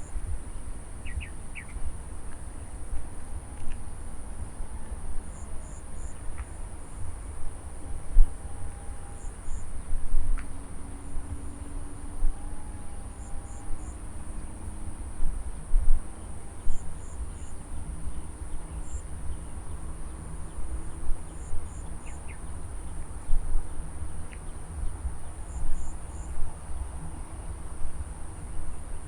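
Field insects trilling in a steady high drone, with short chirps in twos and threes every few seconds. Wind rumbles and buffets on the microphone in gusts.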